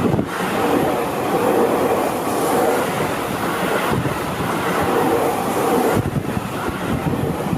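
Seibu Ikebukuro Line electric train passing close by, a loud continuous rumble of wheels on rail that holds steady with brief dips about four and six seconds in.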